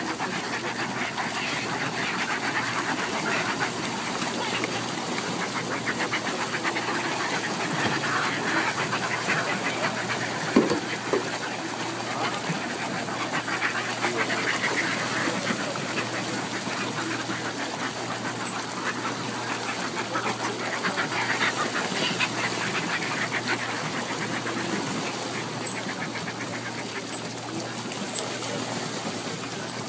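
A large flock of seabirds in a feeding frenzy over fish scraps, giving a dense, continuous chatter of harsh cackling calls. One sharp knock comes about ten and a half seconds in.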